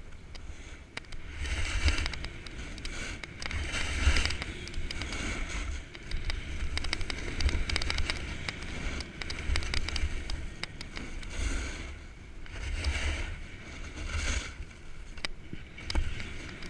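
Snowboard edge scraping and hissing over firm, icy snow, swelling with each carved turn every second or two, over a low rumble of wind buffeting the microphone.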